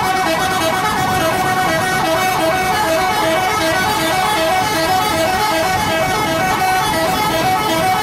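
Indonesian 'telolet' multi-tone bus horn playing its rapid, repeating melody of short notes at several pitches, over the running coach.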